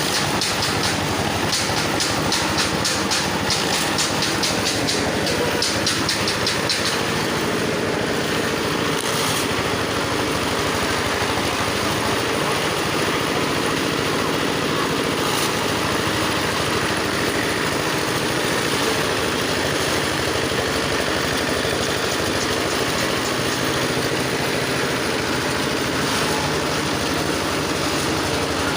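Grass chopper machine running steadily under power. For about the first seven seconds a fast, even clicking sounds over it.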